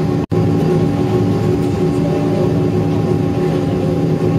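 Steady airliner cabin noise as the jet taxis after landing: the engines and cabin air system drone with a few steady hums. The sound cuts out completely for a split second about a quarter second in.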